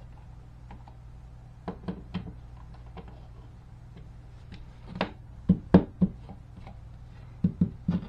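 Hand screwdriver clicking and knocking on a GFCI receptacle's mounting screws as the device is screwed into its electrical box, with a cluster of sharper knocks about five and a half to six seconds in and a few more near the end, over a steady low hum.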